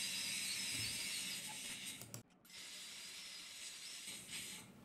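Steady hiss from a dental high-speed handpiece and its water spray while cutting an access through an amalgam filling, cutting out abruptly for a moment a little over two seconds in.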